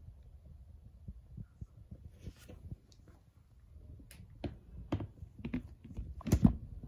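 Handling noise: soft low bumps and scattered clicks, growing into a few louder knocks near the end.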